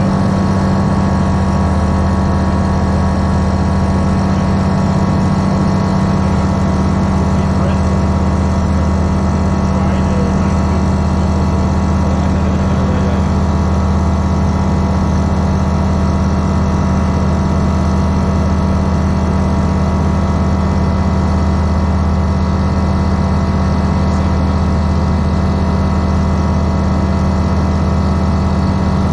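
Grob G109B motorglider's 100 hp FADEC-controlled Rotax 912 flat-four engine and constant-speed MT propeller running steadily at high power during the climb after takeoff, heard from inside the cockpit.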